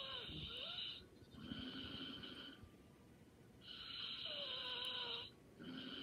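A person snoring lightly: two slow breath cycles, each a longer snore followed by a shorter, softer one, with a faint whistle that slides in pitch inside the snores.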